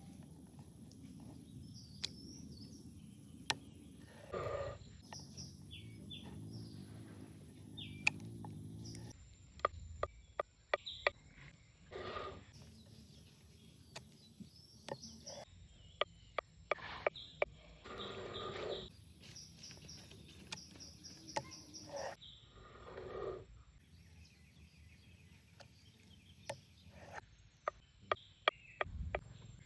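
Hand-work sounds: scattered sharp clicks and taps and short bursts of scraping or rubbing, over a steady outdoor background with bird chirps.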